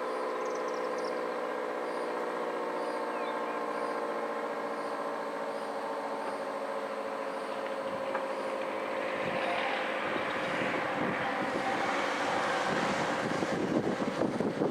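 Federal Signal Model 5T outdoor warning siren sounding a steady two-tone note from its 9/12-port chopper, the pitch sagging slowly. Wind noise on the microphone builds from about nine seconds in.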